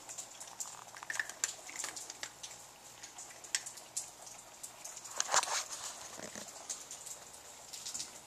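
Cats crunching dry kibble: many quick, irregular crisp clicks, with one louder scuff about five seconds in.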